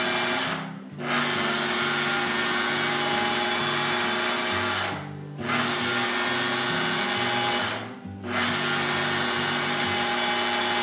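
Food processor motor running in long pulses, cutting softened butter into a flour and spice mix. It stops briefly three times, about a second in, about five seconds in and about eight seconds in, as the mixture turns crumbly.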